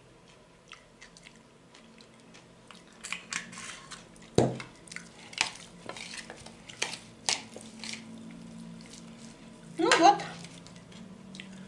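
An oil bottle set down on the table with a single knock, followed by a fork clinking and scraping against a glass bowl as a shredded cabbage salad is tossed. A short burst of voice comes near the end.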